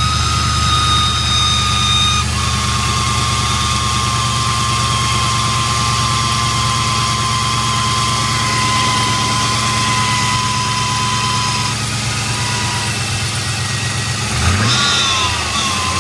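1999 Camaro's LS1 V8 idling on a cold start at 25 °F, with a steady high whine over the idle that slowly drops in pitch and fades out about twelve seconds in. Near the end the engine speed rises and falls briefly.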